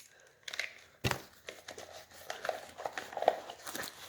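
Handling noises from working on wiring and tools: one sharp knock about a second in, then scattered small clicks and light rustling.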